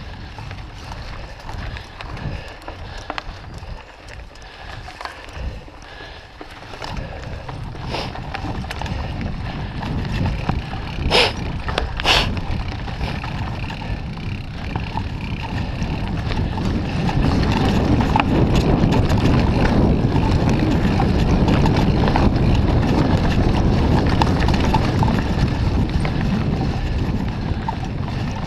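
Moots Mooto-X RSL titanium hardtail mountain bike rattling down a leaf-covered dirt singletrack: tyres rolling and crunching over dry leaves and the bike chattering over the bumps, with wind on the microphone. Two sharp clicks come about a second apart near the middle, and the noise grows louder as speed builds in the second half.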